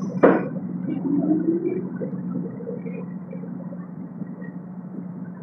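Inside a subway car running through a tunnel: a steady low hum and rumble of the train, with a sharp clank just after the start and a brief rising tone. The noise eases off in the second half.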